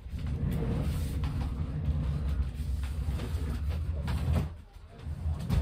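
Low rumbling and rustling movement noise as a person shifts and moves on a chair close to the recording device, fading about four and a half seconds in, then one sharp thump near the end.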